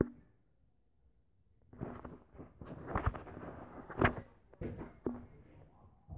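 Handling noise: rustling and several sharp knocks and thumps as a phone is moved around, starting about two seconds in.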